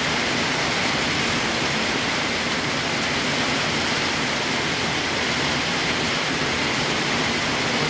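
Heavy rain pouring down steadily in a thunderstorm, running off the edge of a roof overhang.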